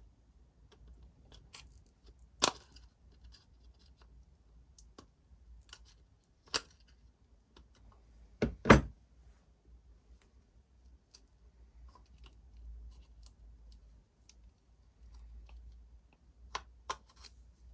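Sharp clicks and knocks of a plastic soap dispenser housing and metal pliers being handled while its battery is fitted back inside. The loudest is a heavy double knock a little past the middle; the rest are scattered single clicks.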